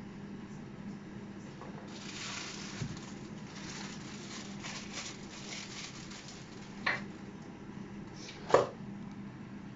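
Sizzling and crackling in a saucepan of hot sesame oil for a few seconds, then two sharp knocks, the second the loudest, over a steady low hum.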